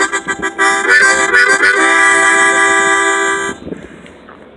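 Harmonica playing a quick run of notes, then holding one long chord that cuts off suddenly about three and a half seconds in.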